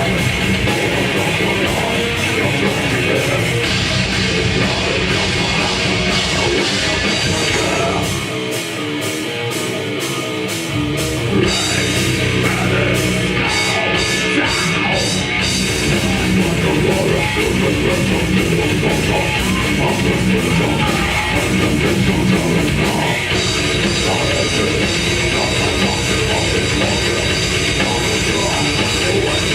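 Death metal band playing live: distorted electric guitars over fast drums. About eight seconds in, the bass and kick drum drop out for a couple of seconds, then the full band comes back in.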